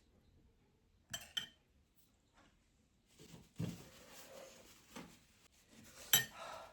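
Cutlery clinking and knocking against dishes during a meal: a quick pair of clinks about a second in, a few softer knocks, and a louder ringing clink near the end.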